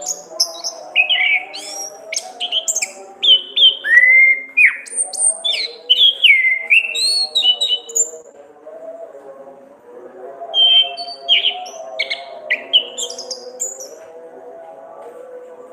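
Orange-headed thrush singing: rapid, varied whistled phrases with sweeping notes, in two bouts with a pause of a couple of seconds between them, over a continuous lower background hum.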